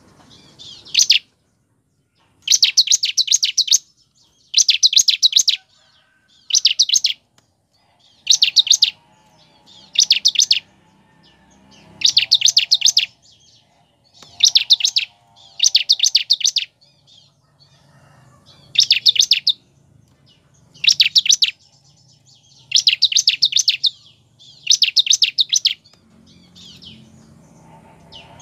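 Bar-winged prinia (ciblek) singing: about a dozen short bursts of rapid, high-pitched notes, one every second or two.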